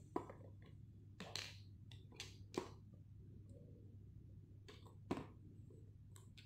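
Small nail polish bottles clicking and knocking together as they are picked up and put down, a handful of short separate clicks over a faint low hum.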